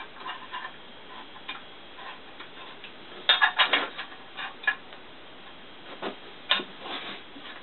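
Wrench tightening the bolts on a 250 mm split-type lathe chuck: scattered sharp metal clicks, with a quick run of several clicks a little over three seconds in.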